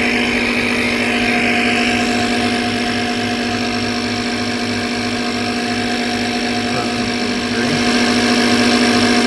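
Air compressor motor running with a steady hum while it pumps a go-kart tire up past 40 PSI to force the beads to seat; the sound gets a little louder near the end.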